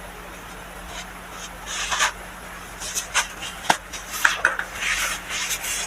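Compressed baking soda being crushed, a run of soft, irregular crunches and crackles that starts about two seconds in.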